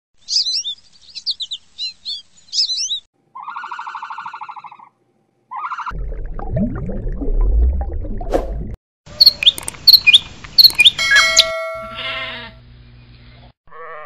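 A string of short animal-sound clips cut one after another. It opens with a house sparrow chirping. Then come a buzzy pulsed call, a low rumbling noise, several other bird calls, and at the very end the start of a sheep's bleat.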